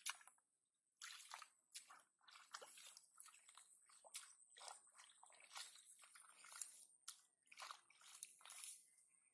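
Faint, irregular sloshing and squelching of shallow muddy water as hands grope through mud and waterweeds, feeling for fish.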